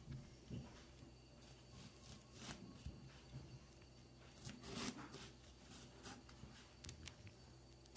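Coarse-toothed handsaw scraping through orange peel and flesh against a wooden cutting board: a few faint, separate strokes, the longest about five seconds in.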